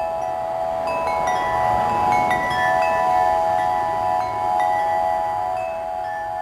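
Wind chimes ringing, with many overlapping notes sustaining and fresh higher notes struck every so often, over a soft rush of wind that swells about a second in.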